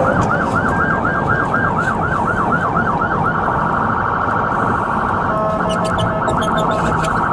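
Police patrol car siren heard from inside the cabin. It yelps with fast rising-and-falling sweeps, about four a second, changes to a steadier tone a little over three seconds in, and switches again around five seconds in to rapidly broken level tones. Engine and road noise rumble underneath.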